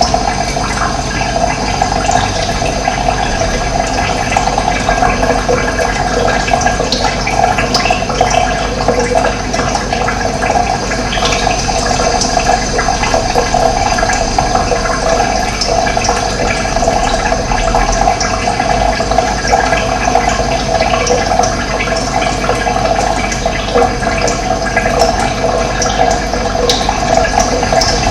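Running water, flowing steadily with a constant gurgle and no pauses.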